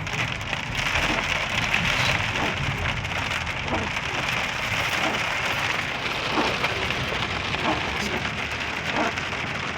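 Heavy rain falling steadily in a thunderstorm, a constant downpour with individual drops striking close by.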